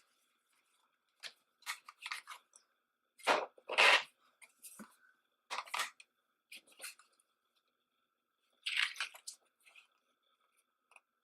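Plastic CD cases and paper inserts being handled: scattered rustles and clicks, loudest about three to four seconds in.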